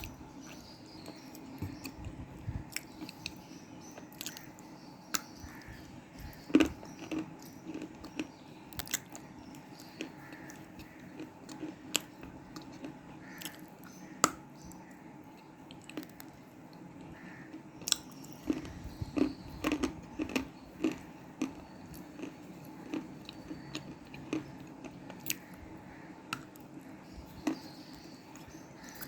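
Close-miked biting and chewing of dry black cement pieces: irregular sharp crunches, coming in quick clusters about a quarter of the way in and again about two-thirds in, over a faint steady hum.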